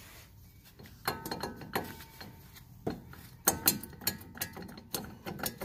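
Scattered metallic clicks and clinks, some with a short ring after them, from metal parts being handled at a truck's wheel hub.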